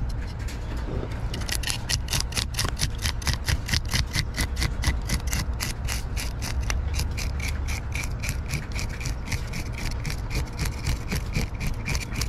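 Metal fish scaler scraping the scales off a mangrove snapper in quick, even strokes, about four or five a second. The strokes start about a second in.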